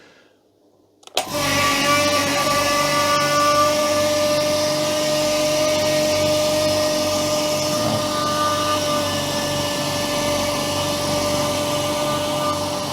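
Upgraded electric air compressor switching on about a second in and running steadily, pumping up its tank from empty. It gives a steady hum with a pulsing beat underneath.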